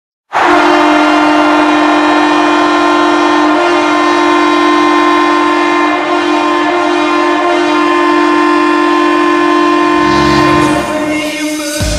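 Ottawa Senators arena goal horn sounding one long, steady blast of about ten seconds, two low pitches together. Near the end the goal song's drums come in and the horn cuts off.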